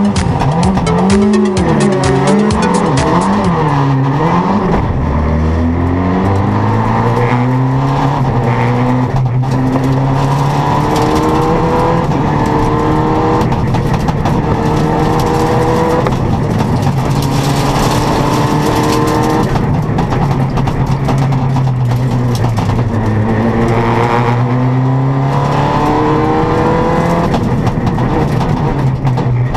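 Citroën DS3 R3 rally car's turbocharged four-cylinder engine heard from inside the cockpit. It revs up and down for the first few seconds, then pulls through the gears, its pitch climbing and dropping again and again at the shifts.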